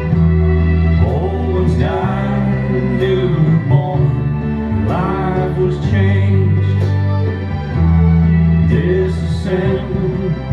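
Country-style song with a singer over guitar and steady bass notes, played as the line-dance track.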